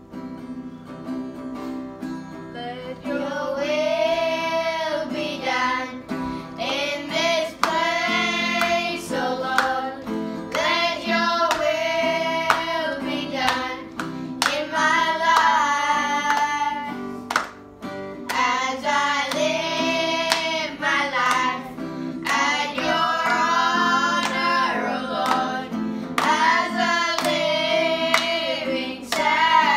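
Acoustic guitar strummed while a group of children sing a song together, the voices coming in about two and a half seconds in after a short guitar lead-in. Hands clap along near the end.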